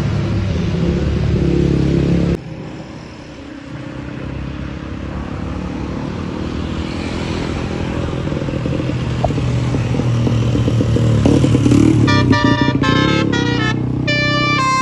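Road traffic engine noise that drops suddenly about two seconds in and then builds steadily as a vehicle draws near. About twelve seconds in, a bus's multi-tone 'telolet' Basuri horn starts playing a quick tune of short, sharp notes.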